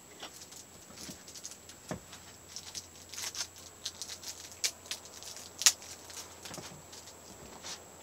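Light, scattered clicks and crinkles from handling a small plastic safety cutter and its packaging, with one sharper click a little after halfway.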